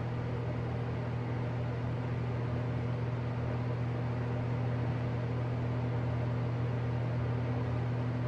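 A steady low electrical-sounding hum with an even hiss over it, unchanging throughout.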